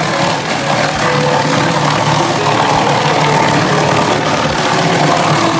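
Bakso meatball-forming machine running steadily, its motor and drive making a constant mechanical noise.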